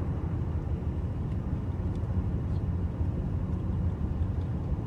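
Steady low rumble of a car driving, heard inside the cabin: tyre and engine noise with a few faint ticks.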